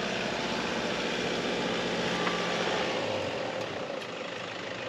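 Toyota Hilux pickup's engine running as it crawls slowly through deep mud; its low rumble drops away about three seconds in.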